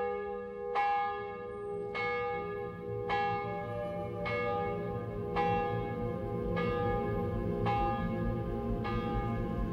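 A church bell tolling: one bell struck at an even pace, a little over once a second, the same note each time, each stroke ringing on into the next.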